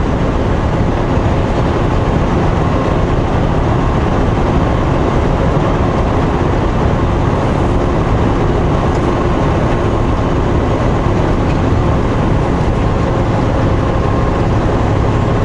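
Steady in-cab drone of a semi-truck driving along the highway: diesel engine and road noise rumbling evenly without change.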